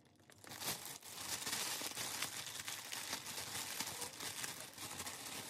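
Packaging being handled and crinkling, a continuous crackly rustle with many small crackles that starts just after the beginning and fades near the end.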